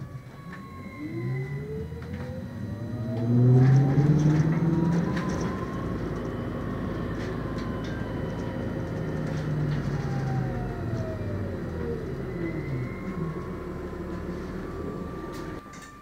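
MAN Lion's City hybrid bus heard from inside the cabin: the electric drive's whine rises in pitch as the bus accelerates, holds steady, then falls as it slows near the end, over a low drivetrain rumble and road noise.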